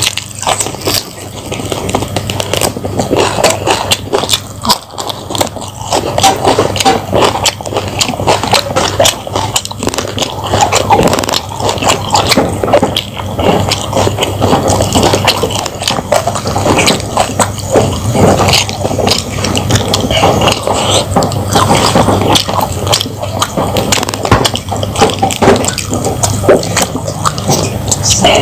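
Close-miked eating: steady wet chewing and crunching of raw leafy greens with fried fish and rice, with lip-smacking and moist mouth sounds.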